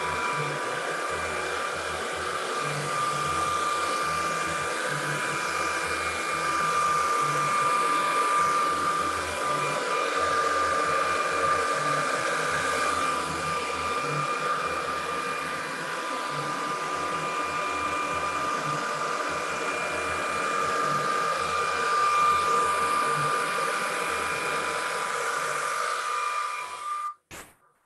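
Handheld hair dryer running steadily on its low speed, a rushing of air with a steady whine, used to blow wet acrylic paint across a canvas. It is switched off and cuts out just before the end.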